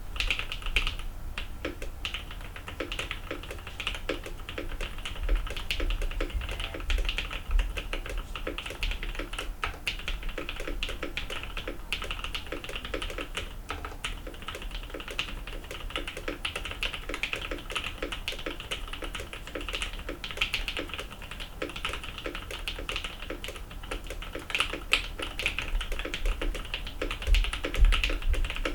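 Continuous fast typing on a custom 75% mechanical keyboard (M-One) with Durock T1 Dark Amber tactile switches and blank PBT keycaps: a dense, irregular run of key clacks.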